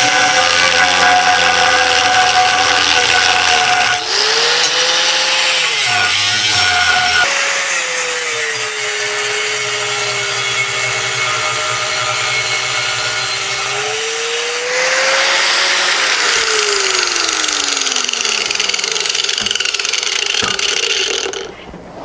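Angle grinder with a thin cutting wheel cutting through thick steel plate: a loud, continuous grinding with a motor whine that rises and falls in pitch as the wheel is pressed into the cut. The cutting stops about a second before the end.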